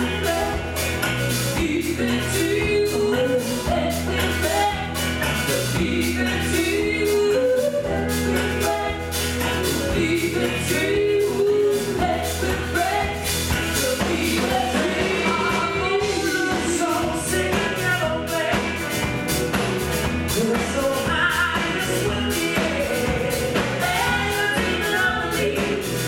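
Live folk-Americana band playing a song: a man and a woman singing together over strummed acoustic guitar, banjo and electric guitar.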